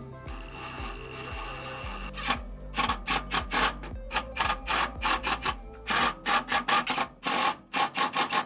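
Cordless impact driver fastening the bolts of a Scopema seat swivel plate to the seat base. A steady motor whine runs for about two seconds, then comes a run of short, quick hammering bursts as the bolts are run down. The sound cuts off abruptly at the end.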